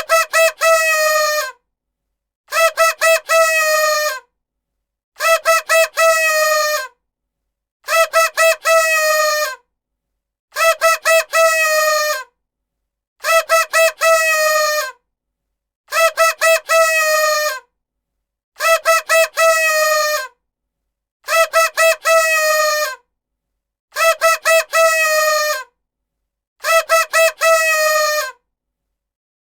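Party horn (paper blowout) blown in a repeating pattern: three short toots, then one longer buzzy honk whose pitch sags at the end. The same figure comes eleven times, about every two and a half seconds.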